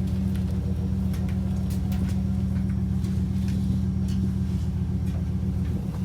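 A motor or engine running steadily at a constant speed, with a few light clicks and knocks over it.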